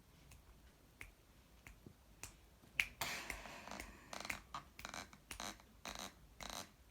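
Faint, irregular sharp clicks and taps, the loudest a little under three seconds in, with a short stretch of rustling just after it and more clicks in the second half.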